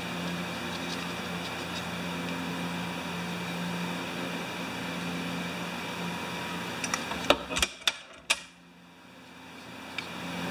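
A handful of sharp metal clicks and knocks in quick succession, about seven to eight seconds in, as a steel bracket and flange are shifted at a bench vise, with one more tick near the end. Under it runs a steady fan-like hum.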